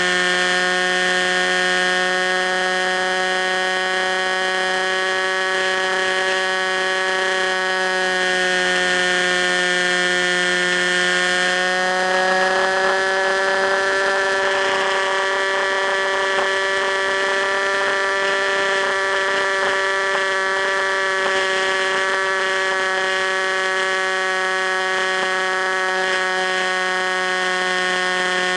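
Electric motor and propeller of an FPV Raptor RC plane running steadily in flight: a constant whining hum whose pitch dips slightly and comes back up about halfway through.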